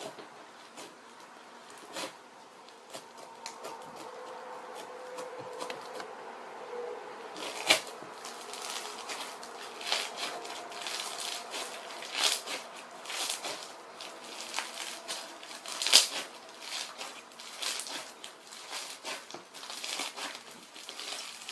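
Foam slime being squeezed and poked, giving irregular crackling clicks and pops, sparse at first and then denser and louder from about seven seconds in.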